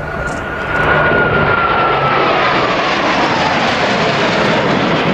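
Four Blue Angels F/A-18 Hornet jets flying past in formation: a loud jet roar that swells about a second in, with a high whine that falls in pitch as they go by.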